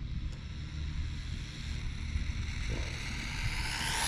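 Steady low rumble of a car driving on the road, with wind, under a high-pitched electric whine from the RC car's brushless motor. The whine grows louder near the end and its pitch bends.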